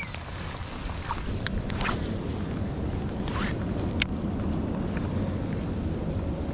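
Steady rain and wind noise on an open boat, with a few sharp clicks from handling the baitcasting reel and rod while casting. A faint steady hum comes in near the end.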